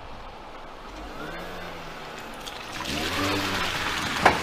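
A MINI hatchback drives into a shallow flooded ford: its engine note is joined by the hiss and rush of water thrown up by the tyres, which swells over the second half. A single sharp smack near the end is the loudest moment.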